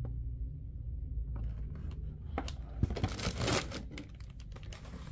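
Cardboard appliance boxes being handled and shifted on a surface: a few light knocks, then a louder rustling scrape about three seconds in, over a low steady hum.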